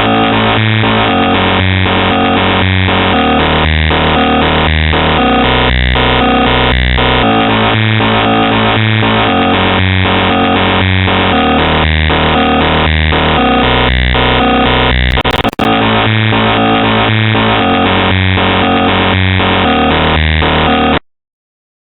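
Loud, harsh electronic noise-music generated by the JESTER2.exe malware, in a blocky, repeating pattern, with a brief glitch partway through. It cuts off suddenly near the end.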